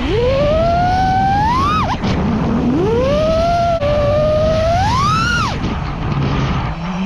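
FPV quadcopter's brushless motors whining under throttle, over rushing air. The pitch climbs steadily twice and drops sharply each time the throttle is cut, with a third climb starting near the end.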